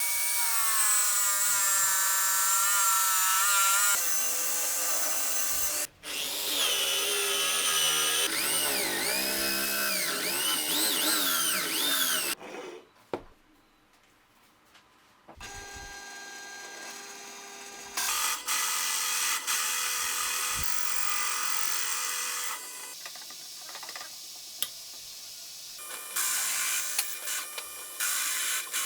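A run of different power tools in separate short takes, with abrupt changes between them. The motor whines rise and fall in pitch, and there is a brief near-silent gap about halfway through.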